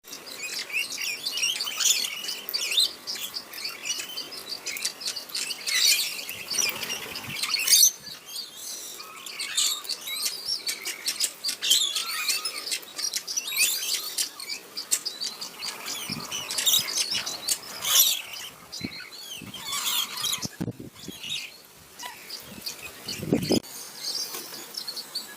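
A flock of wild parrots chirping and squawking busily, with many short clicks among the calls.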